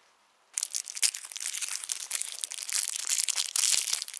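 Snickers bar's plastic wrapper crinkling as it is handled and torn open, starting about half a second in.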